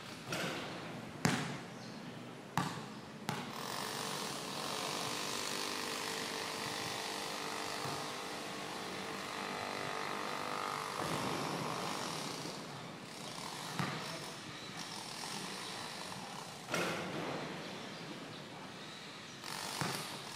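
A basketball bouncing and hitting on a concrete court: single sharp thumps a second or more apart, in a cluster near the start and again near the end. Through the middle an engine runs steadily, then drops away.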